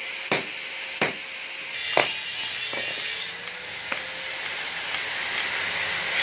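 A handful of sharp metal clicks and clinks, about one a second, as a perforated steel sheet is handled and cut with hand shears, over a steady hiss of heavy rain.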